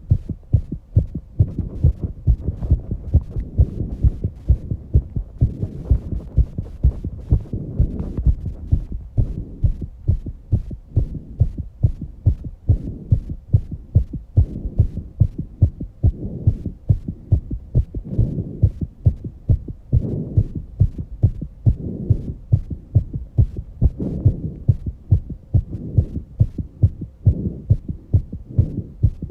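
A young woman's heartbeat, fast and regular, raised by exercise, as a steady run of low thumps. Heavy breathing comes and goes beneath it every couple of seconds.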